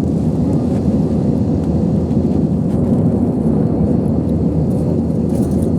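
Steady low rumble of an airliner cabin in flight: engine and airflow noise heard from a passenger seat.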